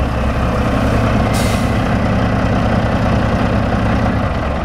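Peterbilt 379 truck's diesel engine idling steadily, with a short burst of air hiss about a second in.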